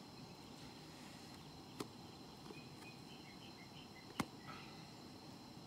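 A mug and food containers being handled, giving two sharp clicks, the second as the mug is set down on a rock. Under them is a quiet, steady outdoor hiss, with a run of short, faint high chirps in the middle.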